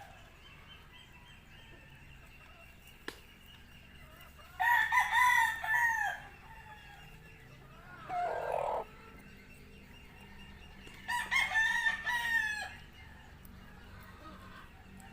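A rooster crowing twice, each crow about a second and a half long, with a shorter, lower sound between the two crows.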